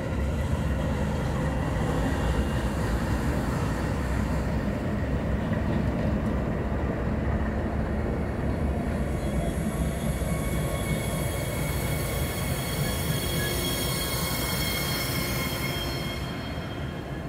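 Norfolk Southern diesel locomotives, a GE Dash 9-40CW leading, rolling slowly past at close range as light power, engines running with a steady rumble. A high wheel squeal joins in about halfway through and fades near the end.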